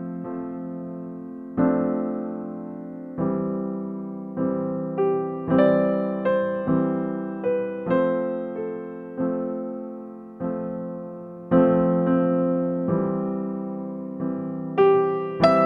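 Background music: a slow piano piece, with chords struck about once a second and left to fade.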